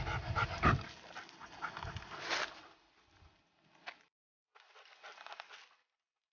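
A dog panting on a brushy path, with crackling of undergrowth; it is loudest in the first two and a half seconds, then fades and cuts out abruptly twice.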